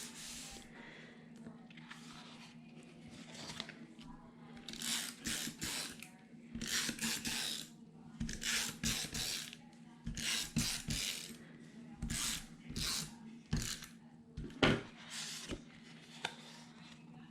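Paper being slid and handled on a tabletop while a piece is positioned: a run of short, irregular rustles, about one or two a second, over a faint steady hum.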